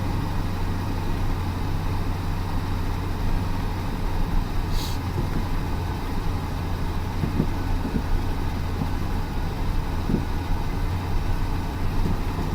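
Heavy vehicle engine running with a steady low drone, with a short hiss about five seconds in.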